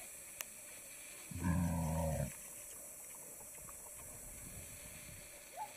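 A pig gives one low, drawn-out grunt about a second and a half in, lasting about a second. A single sharp click comes just before it.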